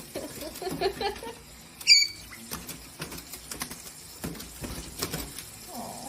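Small animals scrabbling and moving about with many light taps and clicks, and one short high squeak about two seconds in.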